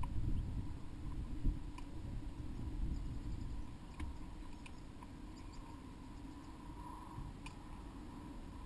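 A few light, scattered clicks and taps, like birds pecking at a box of moss, over a low rumble that eases after about three and a half seconds.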